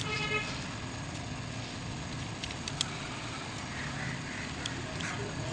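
Suzuki K6A engine's timing chain being handled and laid over its cam sprockets by hand, giving a few light, sharp clicks over a steady background noise.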